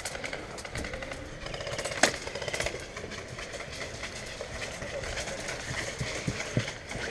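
Footsteps and gear rattle of an airsoft player moving over dry grass, with a rapid string of sharp clicks lasting about a second about one and a half seconds in, one loud snap among them, and a few low thuds near the end.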